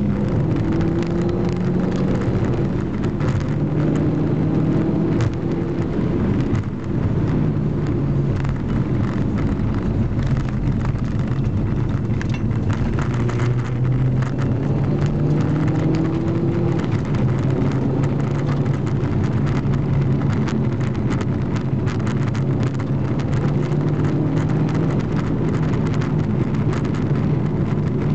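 Inside the cabin of a Seat Ibiza Cupra being driven hard: the engine's note climbs and steps down with gear changes over steady tyre and road rumble. Frequent small knocks and rattles come from the dash camera mount shaking on the rough road surface.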